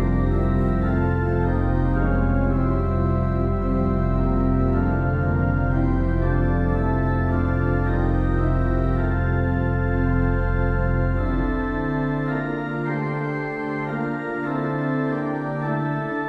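Organ playing a slow hymn-tune setting in held chords over a deep pedal bass. About eleven seconds in the pedal bass drops out, leaving the higher chords sounding on.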